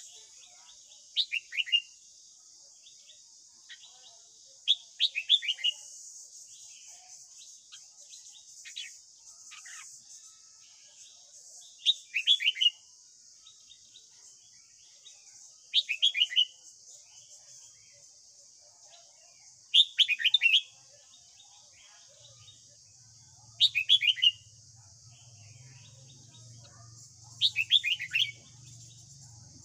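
Red-whiskered bulbul singing: seven short phrases of quick whistled notes, each falling in pitch, over a steady high hiss.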